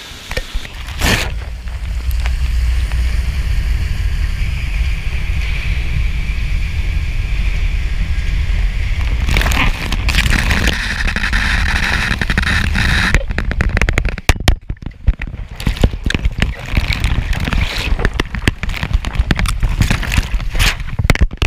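A GoPro camera riding a zucchini packing line: a steady low rumble of conveyor machinery and water, then, from a little past halfway, rapid irregular knocks and clatters as the camera bumps and tumbles along the line.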